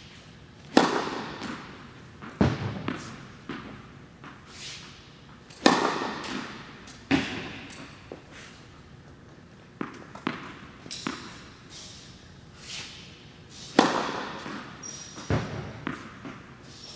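Tennis serves: three sharp racket-on-ball hits about one, five and a half and fourteen seconds in, echoing in an indoor tennis hall. Two of them are followed about a second and a half later by a duller thud, with lighter taps in between.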